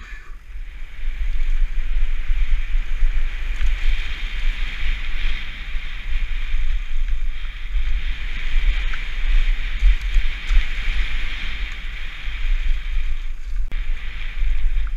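Wind buffeting an action camera's microphone as a mountain bike rolls fast down a dirt trail, with a steady rush of tyres over the ground and a few faint knocks.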